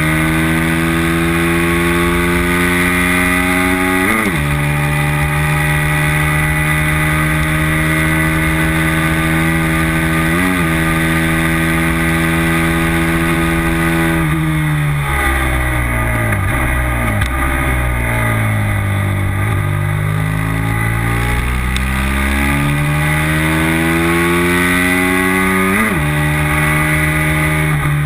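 Racing motorcycle engine at full race pace, recorded from a camera on the bike's tail: it holds nearly steady high revs with a few sudden quick flicks in pitch, then about halfway through the revs fall away over several seconds as the bike slows for a corner and climb again as it accelerates out. Wind and road rush run under the engine throughout.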